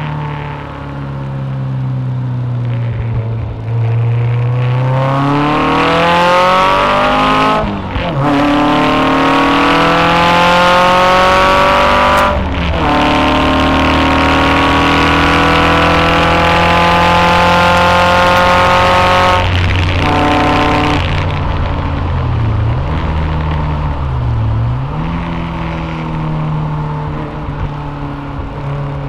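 Westfield sports car's engine heard from the cockpit, accelerating hard up through the gears with two upshifts about 8 and 12 seconds in, then held at high revs along the straight. About 20 seconds in it comes off the throttle and the revs fall, with two quick throttle blips on downshifts under braking before settling to a steady part-throttle run.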